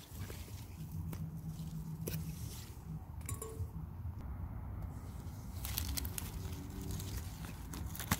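Strawberry leaves and stems rustling and crackling as a hand handles the plants close to the phone, with scattered light clicks over a low rumble.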